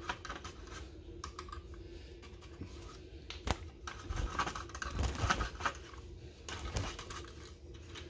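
An old toothbrush scrubbing inside a wooden-framed wire birdcage, pushed in between the wires: irregular scratching with scattered clicks where it knocks the bars, and one sharper click about three and a half seconds in.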